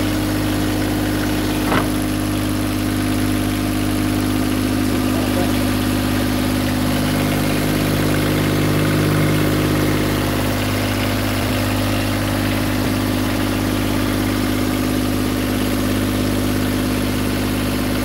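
Yanmar 3YM30 three-cylinder marine diesel inboard engine running steadily, heard loud through the open engine-room hatch. It swells slightly about halfway through.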